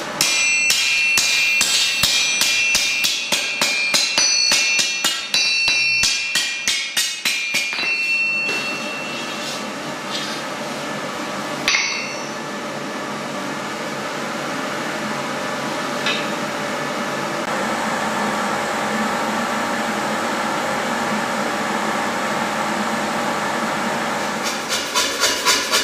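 Blacksmith's hammer striking hot iron on an anvil in a fast run of blows, the anvil ringing with each strike. After about eight seconds the hammering stops and a steady mechanical hum and hiss carries on, until fast, evenly spaced blows start again near the end.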